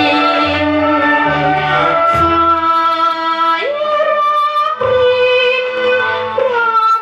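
An old Thai popular song playing from a vinyl record through a moving-coil cartridge: long held melody notes with vibrato and slides over a bass line, which drops out for a couple of seconds near the middle.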